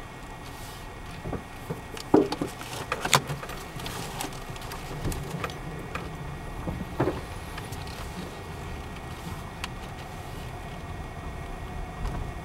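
Car driving slowly, heard from inside the cabin: a steady low rumble of engine and tyres, with scattered clicks and knocks, the loudest about two and three seconds in.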